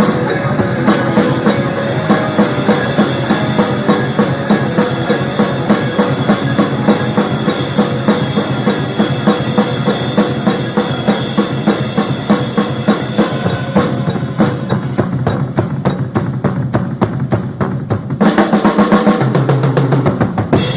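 Drum kit played along to a recorded gospel song: a steady beat, quickening into a run of fast strokes, then a louder final stretch near the end.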